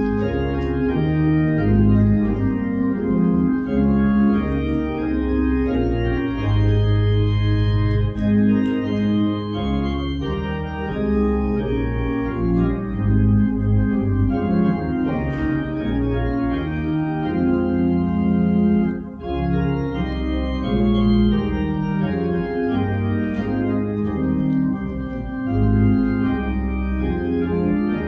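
Organ playing a slow interlude of sustained chords over a bass line that changes every second or two.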